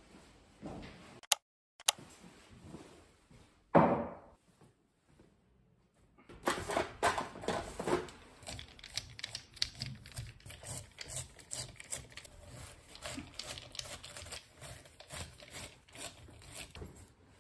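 Screwdriver backing screws out of a chair's rotten seat board: a dense, irregular run of small clicks and scrapes. A few sharp knocks and one louder thud come in the first four seconds.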